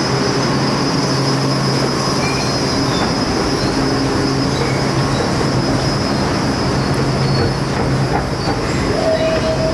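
Milan Metro Line 1 train running on its rails, a steady running noise with a low hum and a thin high whine. A short tone sounds about nine seconds in.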